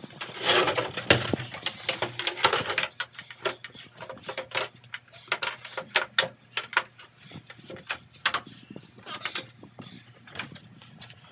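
Irregular clattering and knocking, several sharp knocks a second, as a folding table's metal legs are folded and set pieces are handled and moved. It is busiest in the first three seconds.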